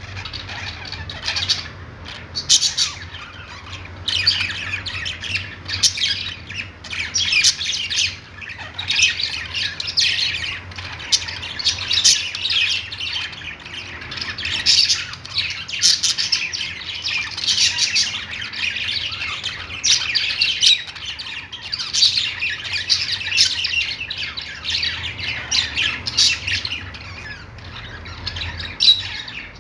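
A flock of caged budgerigars (parakeets) chirping, warbling and squawking together in a dense, continuous chatter, with louder sharp calls standing out every second or so.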